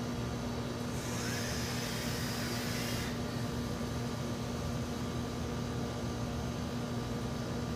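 A vape's dual parallel 24-gauge coil firing at about 180 watts on a 3-series lipo box mod while air is drawn through it. It makes a hiss for about two seconds, starting about a second in and cutting off sharply. A steady electrical hum runs underneath.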